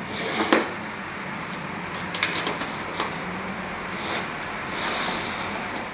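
A thin case being slid onto the wooden shelf of a pine pallet-wood cabinet: light clacks and rubbing against the wood, the sharpest knock about half a second in and a few softer ones after.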